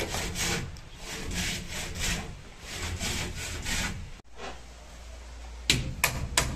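Rhythmic back-and-forth rasping strokes on wood, like a hand saw or sanding. After a break, three sharp hammer taps close together near the end.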